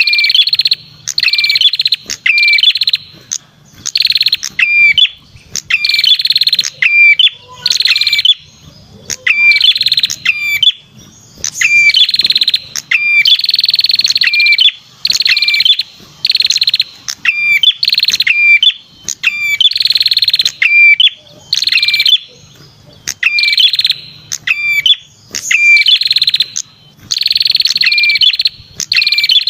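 Perenjak kepala merah bird lure call: a loud, buzzy, high call repeated about once a second, each ending in a short hooked note, over and over without a break.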